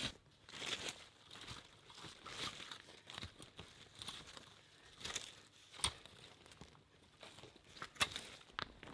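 Faint, scattered rustling and crunching, with two sharp knocks about six and eight seconds in.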